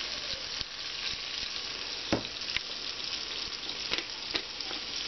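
Frozen salmon fillet sizzling in hot oil in a frying pan, a steady crackle dotted with small pops. There is one sharper click about two seconds in.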